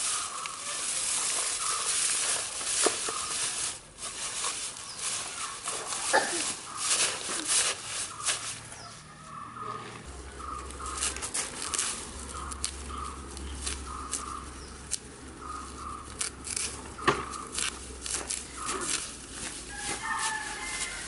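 Dry straw rustling and crackling as hands press and fluff it into a plastic tub to form a nest. From about halfway, a bird calls in short repeated notes in the background.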